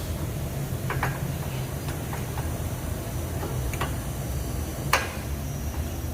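A few sharp clicks and taps of metal brake parts being handled, the loudest near the end, over a steady low hum.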